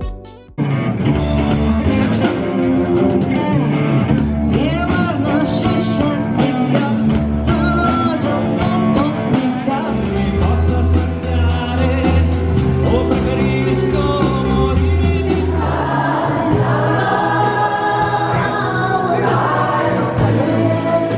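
Background music: a song with singing over a steady bass line, possibly choral, starting just after a short gap.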